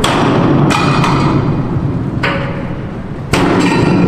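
Heavy hammer blows on steel, four strikes at uneven spacing, each leaving a metallic ring.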